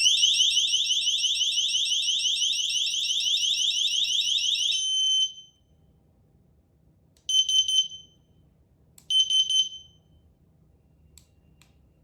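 Wireless motion-sensor alarm receiver sounding its alarm mode: a loud, rapidly repeating rising electronic warble for about five seconds that then cuts off. Two short electronic chirps follow a couple of seconds apart, then two faint clicks near the end.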